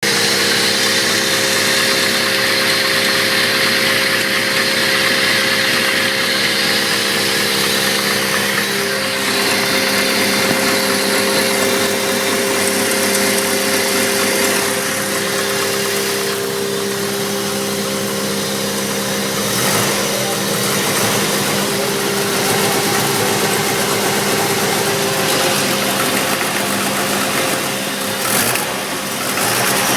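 Turbocharged Chevrolet S-10 pickup's engine running steadily at idle with a rapid knock, the sound of an internal engine knock.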